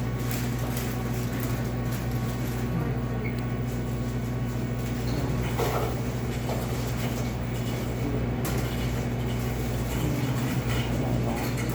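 Steady low machine hum with a constant mains-pitched drone over a low rumble, with a few faint clatters.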